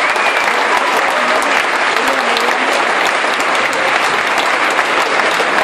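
Concert audience applauding, a loud, steady clapping from a large crowd, with a few voices calling out within it.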